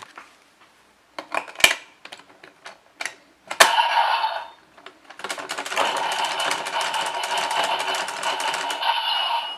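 Bandai DX Geartlinger toy morpher being worked by hand: a few plastic clicks, a short electronic sound effect about three and a half seconds in, then from about five seconds a long run of rapid clicking over a steady electronic tone as the gear is spun.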